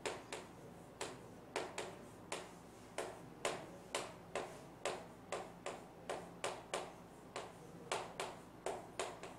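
Chalk tapping and clicking against a chalkboard as words are written stroke by stroke: an irregular series of sharp taps, about two or three a second.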